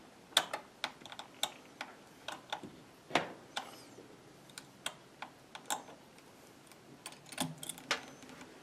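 Irregular sharp clicks and taps of a screwdriver, turned with pliers, working a tight screw out of a laptop's plastic bottom panel.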